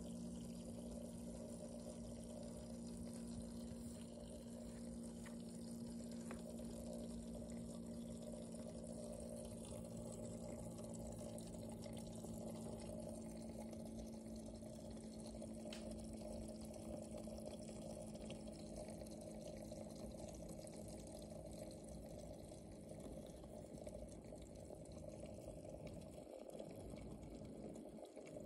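Aquarium filter running: a steady trickle of water with a low, steady hum.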